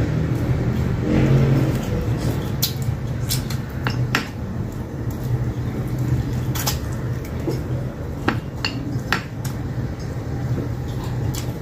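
Eating by hand at a table: fingers scraping rice off a glass bowl, with scattered light clicks and clinks of glassware and mouth sounds of chewing. A steady low hum runs underneath.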